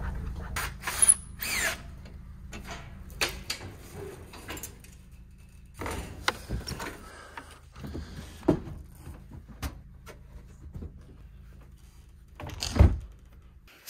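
Metal clanks and rattles from a utility trailer's steel mesh ramp gate being lowered and stepped on, a string of separate knocks with the loudest near the end, over a steady low hum.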